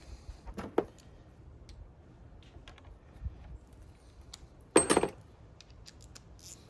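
Metal clicks and clinks from a battery cable's terminal clamp and hand tools being handled at the negative post, with one loud clank that rings briefly about five seconds in.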